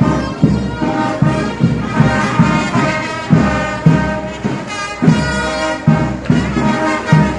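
Brass band playing, horns over a steady bass drum beat of about two beats a second.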